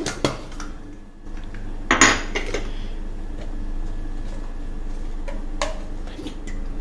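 Small spoon clinking and scraping against a dish and spice containers while spice powder is spooned out: a few scattered clinks, the loudest clatter about two seconds in, over a steady low hum.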